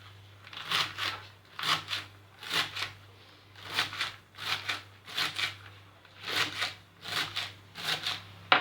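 A knife chopping a bunch of fresh mallow (bakoula) leaves, a run of crisp, crunchy cutting strokes at about two a second, with a sharp knock near the end.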